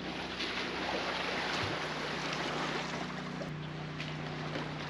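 A steady low engine hum, with water sloshing and splashing over it that is strongest in the first few seconds, and a few light knocks.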